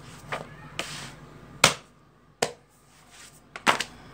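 Glossy paper magazines handled on a tiled floor: pages flipped and magazines laid down, giving a series of sharp paper slaps and taps. The loudest comes about one and a half seconds in, and a quick cluster follows near the end.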